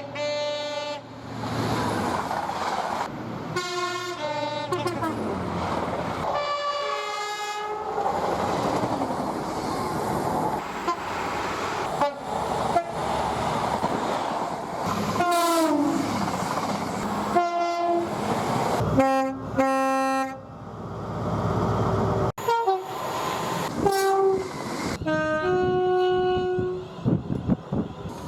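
Train horns sounding one short clip after another, many of them two-tone blasts alternating between a high and a low note, over the rush of trains passing. A horn's pitch slides downward about halfway through as a train goes by.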